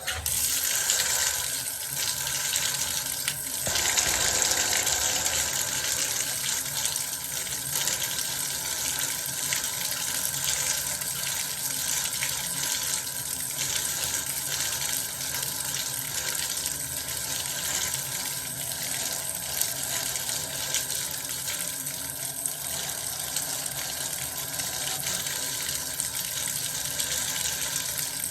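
Bathtub tap running, a steady gush of water pouring into the tub, turned on suddenly at the start.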